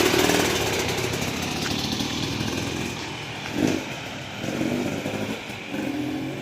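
GasGas EC300's 300cc two-stroke engine idling while it warms up, with a brief louder swell about three and a half seconds in.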